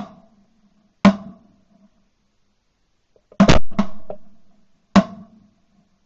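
Shotgun shots fired at flying geese, heard from the gun itself: about six sharp reports, one at the start, one a second later, three in quick succession past the middle, which are the loudest, and a last one near the end, each with a short ringing tail.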